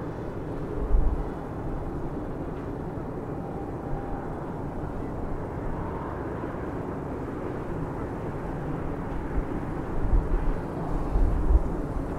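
Container freight train rolling across a steel trestle bridge: a steady rumble, with low thuds about a second in and again near the end.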